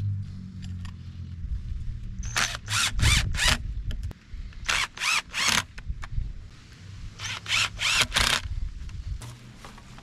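Cordless DeWalt impact driver driving screws through steel L brackets into a log: the motor hums at first, then comes short bursts of hammering rattle in three groups of three or four as each screw is run in.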